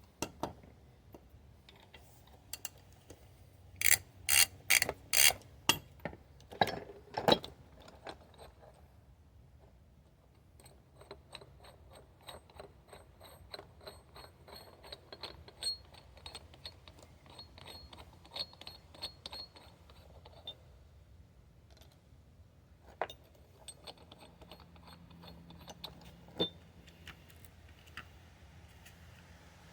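Hand tools working on the seized transaxle hub of a Sears Suburban SS16 garden tractor. About four seconds in there is a cluster of sharp metallic knocks, followed later by a long run of rapid, even metal clicking and a few more single knocks.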